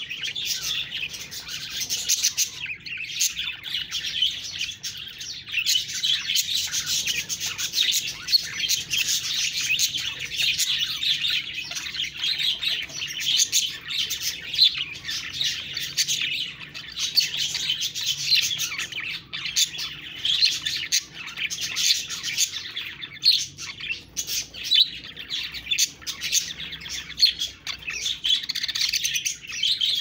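Budgerigars chirping and warbling in a continuous chatter of quick, high, overlapping calls.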